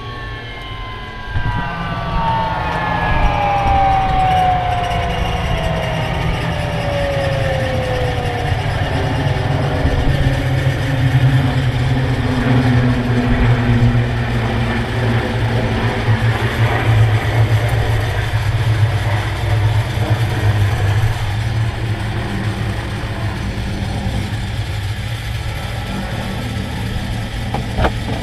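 The L-39 Albatros's Ivchenko AI-25TL turbofan spooling down, its whine falling steadily in pitch over about nine seconds, over a steady low rumble.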